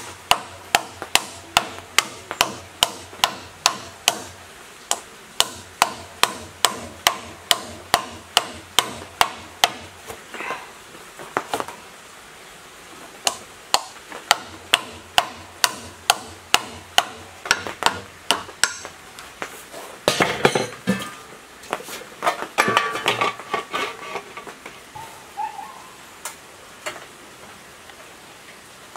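Hammer blows on a metal drift driving a plastic cooling fan onto an electric motor's shaft, about two sharp taps a second in long runs, with a pause about ten seconds in. Past the middle come a few seconds of clattering, then a few scattered knocks.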